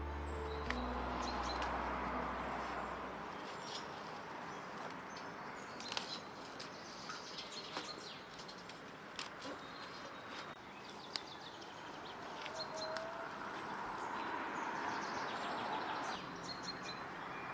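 Small birds chirping over a steady outdoor hiss, with a few sharp snaps and rustles from green onions and greens being picked by hand.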